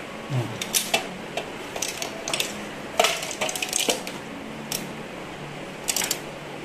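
Irregular metallic clicks and clinks, loudest about three seconds in, from a computer power supply being handled and tipped, with a loose screw clattering inside it.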